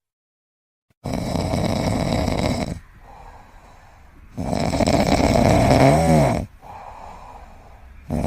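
A pet snoring in a slow rhythm, starting about a second in: loud rough breaths roughly every three and a half seconds with quieter breaths between, one of the loud breaths ending in a whistle that rises and falls.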